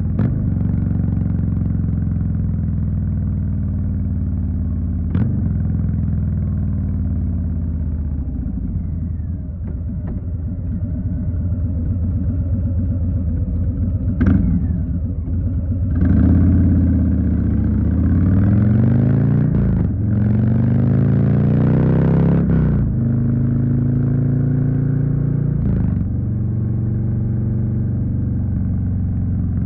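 2020 Harley-Davidson Street Bob's Milwaukee-Eight V-twin engine riding along steadily, then accelerating hard about halfway through. Its pitch climbs and drops back twice as it shifts up, before it settles into a steady cruise again. A few short sharp knocks come through along the way.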